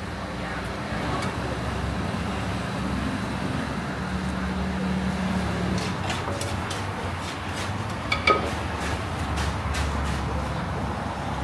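Wooden pestle knocking in a clay mortar as papaya salad is pounded, a run of irregular sharp knocks in the second half. Under it is a steady low rumble of traffic and street noise.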